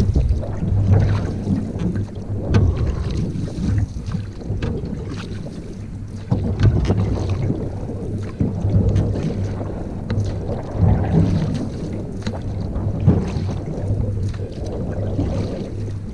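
Wind rumbling on the microphone on a canoe on open water, with water splashing and occasional sharp knocks at irregular intervals.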